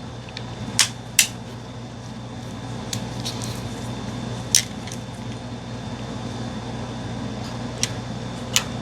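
Steady low mechanical hum, like a fan running, with about five light, sharp clicks spread through, two close together about a second in and one near the end.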